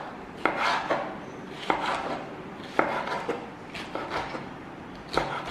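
Chef's knife slicing a red bell pepper into strips on a wooden cutting board: a sharp knock of the blade on the board about once a second, at an uneven pace.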